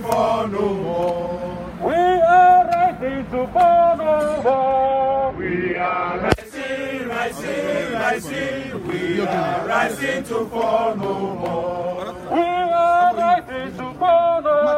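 A group of protesters chanting a sung slogan together, men's voices in phrases with long held notes.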